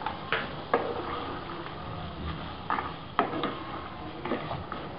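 Wooden spatula stirring chicken, cashews and red chilies in a pan, scraping along the pan with several sharp knocks against it.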